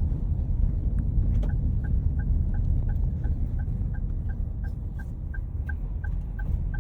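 Car cabin with the engine and road giving a steady low rumble. About a second and a half in, the turn-signal indicator starts ticking at an even pace, about three ticks a second.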